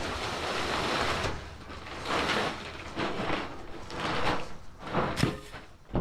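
A plastic tarp rustling and crinkling as it is pulled out over a stack of square hay bales. The sound comes in several long swells, with one sharp crack about five seconds in.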